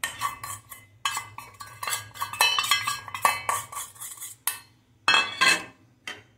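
Stainless-steel strainer bowl clinking and scraping against a pan as cornflour is tapped out of it onto soya chunks, a quick run of small metal taps. About five seconds in come two louder knocks as the bowl is put down.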